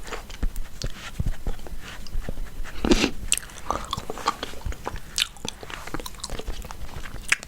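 Chewing gum close to the microphone: irregular wet smacks and clicks of the mouth.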